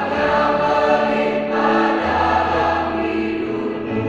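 Large mixed choir of men and women singing in parts, with a brief pause between phrases about one and a half seconds in and low notes held steady underneath.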